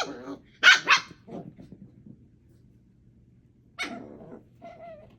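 Puppies play-barking and yipping: a few sharp high yips in the first second, the loudest two close together, then after a quiet gap a yelp and low growling near the end.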